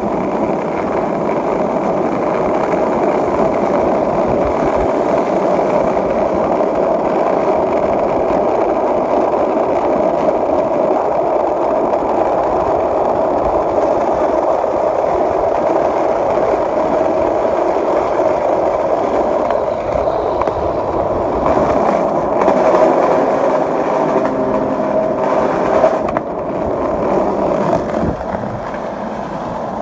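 Skateboard wheels rolling steadily over an asphalt path, a continuous rolling rumble; about 26 seconds in it changes and drops a little as the board rolls onto different pavement.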